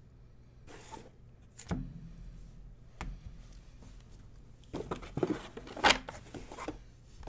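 Trading cards and card boxes handled on a tabletop: a couple of single light knocks, then a quick cluster of clicks, taps and rustles in the second half.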